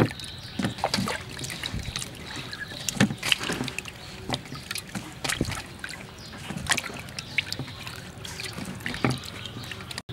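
Wet tomatoes and a mango being set into a plastic basket of vegetables: scattered irregular knocks and soft taps of produce against produce and plastic.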